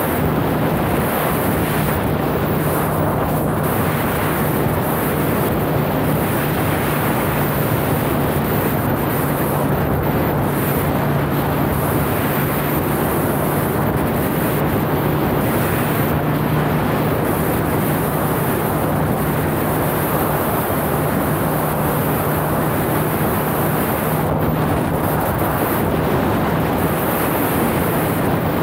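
Wind rushing over the helmet-mounted microphone of a motorcycle at steady road speed, with the bike's engine giving a constant low hum underneath.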